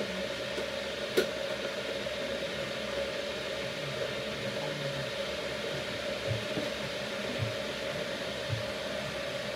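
Steady whirring hum of a household appliance, with one sharp click about a second in and a few faint low knocks later on.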